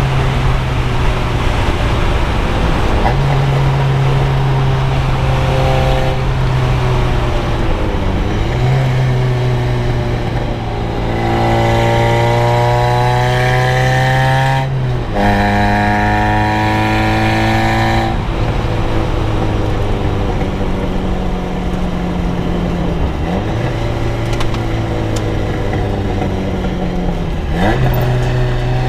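Car engine running under load, its note holding steady for several seconds at a time, rising slowly in the middle and changing pitch several times.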